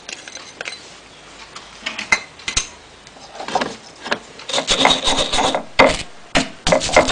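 Stone pestle crushing and grinding garlic cloves with coarse salt on a stone cobek mortar. There are a few light knocks at first, then repeated rasping grinding strokes from about halfway through.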